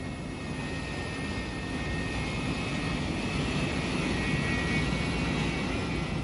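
Sci-fi spaceship engine sound effect: a steady drone with a few faint high steady tones, slowly growing louder.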